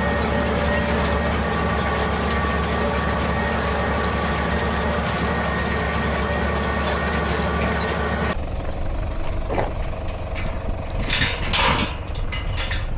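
Tractor engine running steadily, cutting off abruptly about eight seconds in to a quieter background with scattered knocks and rustles.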